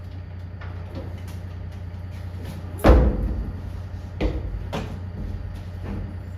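Yanmar ViO35-6a mini excavator's diesel engine running low and steady, with one loud metallic clunk about three seconds in and a few lighter knocks around it.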